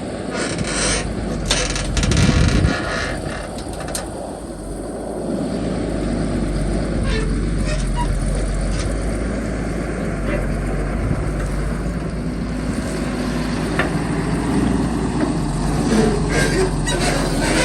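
Heavy excavator's diesel engine running steadily and getting louder about five seconds in, with metallic clanks and knocks from the machine at work in the first few seconds and again near the end.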